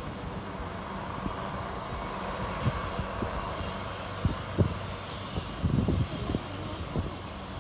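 Leonardo AW139 helicopter running, a steady rushing engine and rotor noise, with irregular low thumps.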